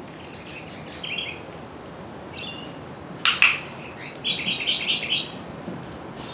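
Small birds chirping in short runs of quick notes, with a sharp double click a little over three seconds in, the loudest sound.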